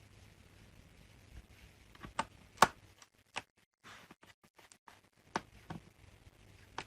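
Scattered small clicks and taps of a screwdriver and tiny screws as the two screws holding the laptop's SSD are put back in, the sharpest click about two and a half seconds in.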